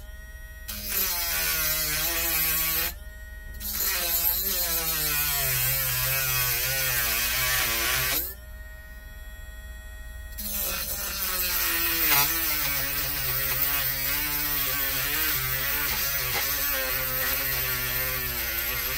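Handheld high-speed rotary tool cutting, its motor whine wavering in pitch as the bit loads and frees. It runs in three stretches, with short pauses about 3 seconds in and about 8 seconds in.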